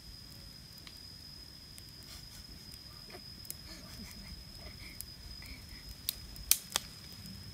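A steady, high-pitched insect drone running on without a break, with a few sharp cracks about six to seven seconds in.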